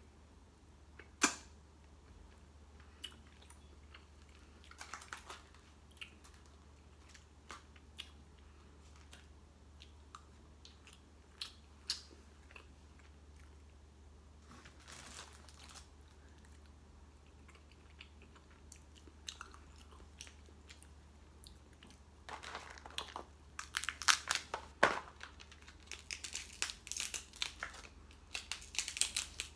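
A person eating seafood up close: chewing with scattered clicks and crunches, one sharp click about a second in. In the last quarter a dense run of crackling and crunching as food is pulled apart by hand.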